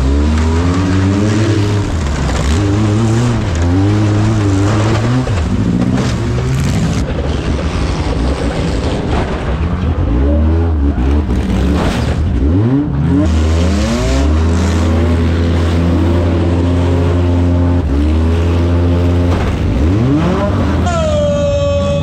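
Compact demolition derby cars running in the arena: several engines revving up and down at once over a steady low rumble, with a few sharp crashes of cars hitting each other.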